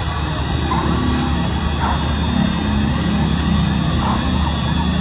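Emergency vehicle sirens wailing over a dense, loud background din, their pitch swinging up and down most clearly near the end.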